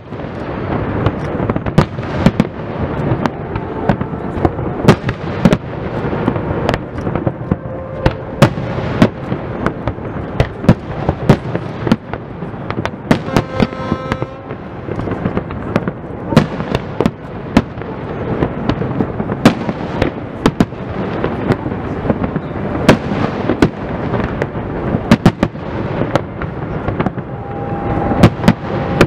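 Fireworks display: a dense, irregular run of loud shell bursts and sharp bangs over a continuous rumble of further explosions.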